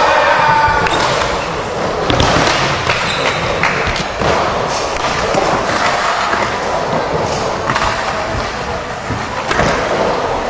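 Skateboard wheels rolling across a wooden bowl with a steady rumble, broken by sharp knocks and clacks from the trucks and deck striking the surface and coping.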